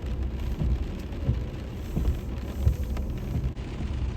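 Steady rain falling, with drops tapping irregularly.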